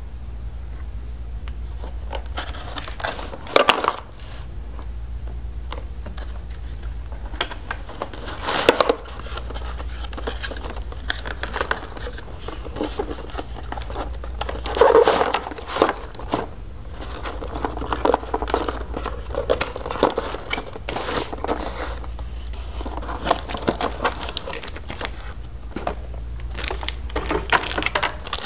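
Plastic and cardboard toy packaging being handled and unwrapped: irregular crinkling and crackling with a few louder rustles, over a low steady hum.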